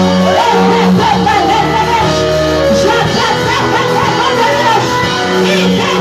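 Live band music with guitar, bass and a voice singing a wavering melody over sustained chords: worship music.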